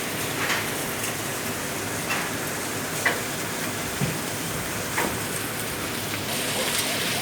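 Steady hiss of running or spraying water while parts are washed, with a few light knocks scattered through it.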